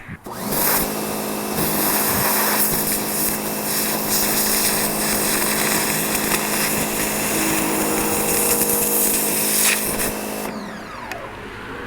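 Sun Joe SPX3000 electric pressure washer running: a steady motor hum under the hiss of the high-pressure water jet spraying at a banana. It shuts off about ten and a half seconds in.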